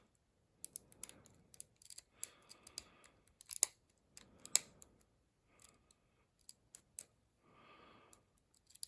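Lock pick and tension wrench working the pins inside a Commando padlock's Yale keyway: small, irregular metal clicks and ticks. The two loudest clicks come about three and a half and four and a half seconds in.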